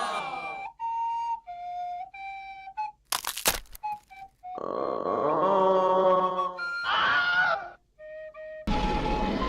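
A quick string of short, unrelated meme sound effects cut back to back: a few plain flute-like held notes, a sudden loud burst of noise about three seconds in, then longer pitched sounds that waver and slide in pitch.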